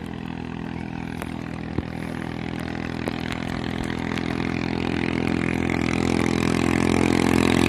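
Racing speedboat's engine approaching across the water: a steady engine note growing steadily louder.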